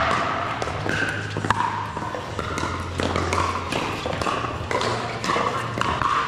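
Pickleball rally: sharp pops of paddles striking the hard plastic ball, about one a second, over a steady low hum.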